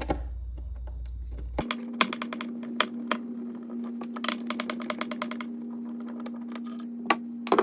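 Irregular small clicks and taps of metal and plastic as the old push-button latch is worked loose and unscrewed from the drawer door. A steady low hum runs beneath, starting about one and a half seconds in.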